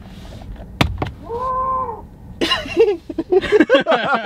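Tesla Model 3 Boombox horn set to the goat sound: a click, then a recorded goat bleating several times in place of the horn.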